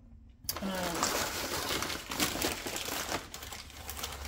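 A brown paper shopping bag crinkling and rustling as a hand rummages through it, starting about half a second in.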